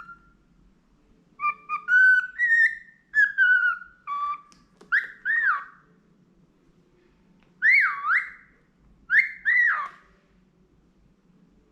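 Budgerigar whistling a learned tune: a quick run of short stepped notes, then three swooping whistles that rise and fall, with short pauses between phrases.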